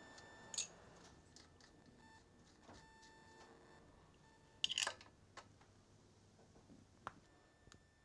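Small clicks and a short rattle of crimped wire terminals being handled and fitted onto a starter motor's solenoid, the loudest clatter about halfway through, against near silence. A faint steady high tone stops about half a second in.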